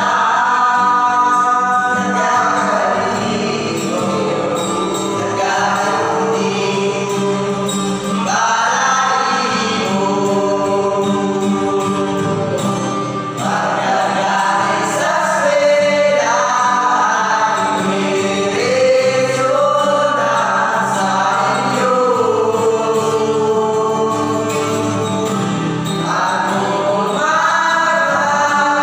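A group of young men singing together to an acoustic guitar.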